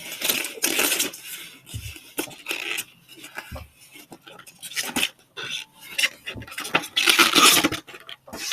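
Small hard objects clattering and rattling as they are handled, with irregular clicks and rustling, loudest near the start and again about seven seconds in.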